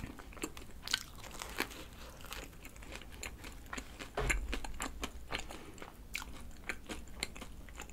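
Close-up biting and chewing of a cream-filled donut, with many small crisp crackles from its rice-powder-dusted, slightly crispy crust. A dull low bump comes a little past four seconds.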